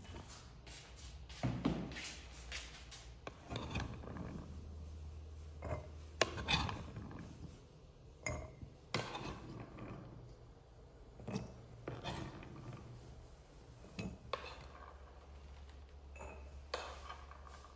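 Kitchen handling sounds: plastic tubs set down on a wooden table, then a metal spoon scooping chickpeas from a wooden bowl and dropping them into small clay pots. Irregular light knocks, clatters and clinks, a few with a short ring.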